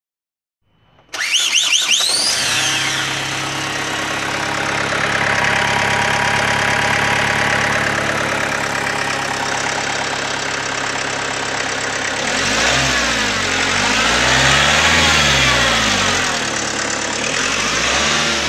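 A 2009 Renault Trafic's 2.0-litre turbodiesel engine starts about a second in with a quick flare of revs, settles into a steady idle, then is revved up and let fall back several times from about two-thirds of the way through. It is an engine test, and the engine runs well.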